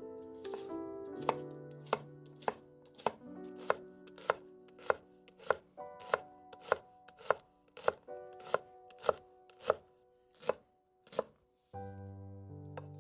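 Knife chopping spring garlic stalks into rings on a wooden cutting board: sharp, even strokes a little under two a second, stopping about two seconds before the end. Soft background music plays underneath.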